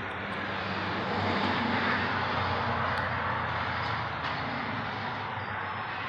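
A road vehicle passing by: tyre and engine noise swells to a peak about two seconds in, then slowly fades away.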